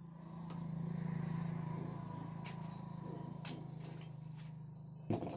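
A low steady hum that swells and then slowly fades, with a few light metallic clicks, about one a second in the second half, from screws and the speaker's metal grille being handled.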